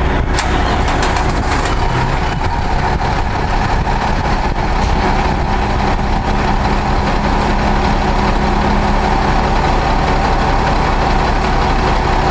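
Heavy diesel truck engine idling steadily, with a sharp click near the start.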